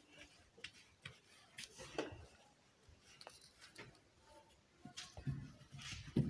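Faint scattered clicks and taps from a phone being carried and handled, with low rumbling handling noise building about five seconds in.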